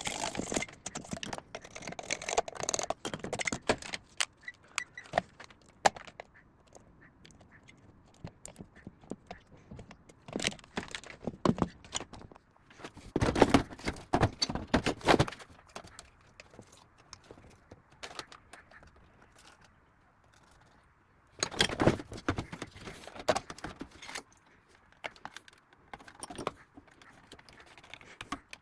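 Clinks, clicks and rattles of small metal parts and hand tools being handled on a workbench during electronics repair. They come in irregular bursts with quiet gaps, the busiest near the middle and again later on.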